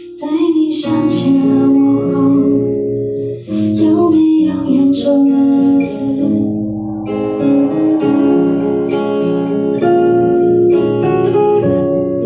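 A song played on acoustic guitar with singing: voices sing over the guitar for roughly the first half, then the instruments carry on with held notes.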